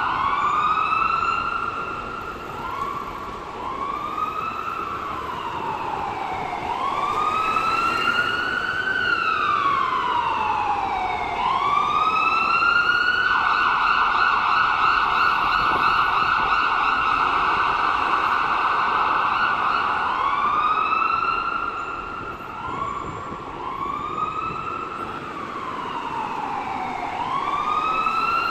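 Ambulance siren wailing, its pitch rising and falling in slow sweeps of a few seconds each. In the middle it holds a high pitch for about seven seconds before the sweeps resume.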